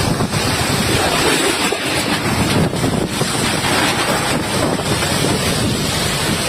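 Strong wind rushing steadily and buffeting the microphone.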